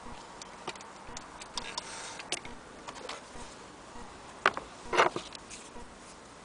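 Irregular light clicks and taps of small objects being handled, with two louder knocks about half a second apart later on.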